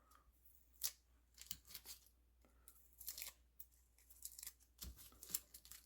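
Faint, scattered rustles and light clicks, a few small handling sounds spread through the quiet.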